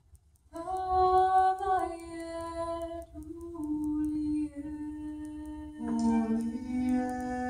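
A cappella vocal music: voices sing long, slow held notes that step from pitch to pitch, with a second, lower voice joining about six seconds in.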